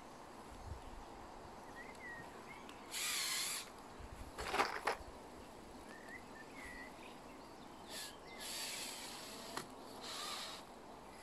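A few short bursts of scraping and rustling as the foam expansion strip is worked into place along the foot of the wall, each lasting under a second, with no motor whine.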